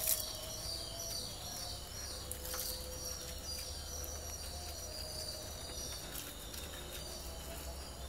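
Quiet outdoor ambience with faint, high chirps repeating throughout, and a brief click right at the start.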